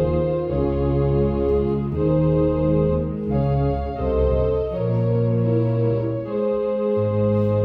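Organ music playing slow, sustained chords that change about once a second.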